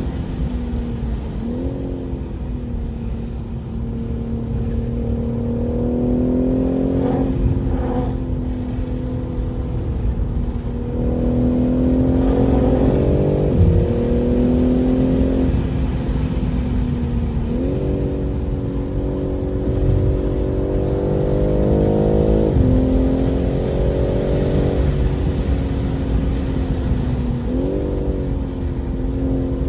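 2023 BMW M3 Competition's twin-turbo inline-six under hard acceleration on track. Its pitch climbs through each gear and drops sharply at each upshift, several times over.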